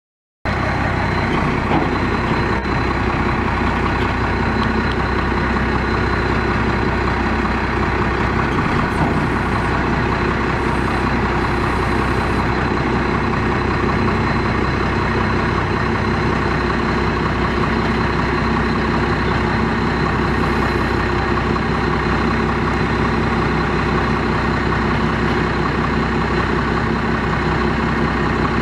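Ford F800 rollback truck's Cummins 5.9-litre inline-six diesel idling steadily while it drives the bed's hydraulics through the PTO, as the rollback bed is tilted and slid back. The sound cuts in abruptly just after the start and then holds an even pitch and level.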